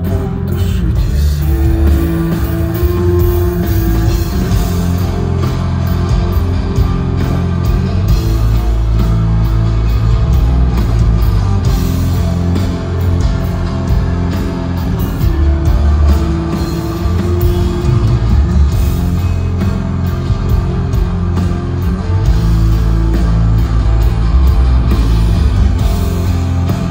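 Live rock band playing loud, with electric guitar and heavy bass and drums, heard from the crowd in an arena.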